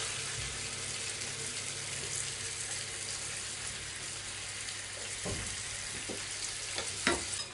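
Pork loin medallions sizzling steadily in a frying pan of oil and orange-juice sauce, with a couple of light knocks about five and seven seconds in as a wooden spatula lifts them out.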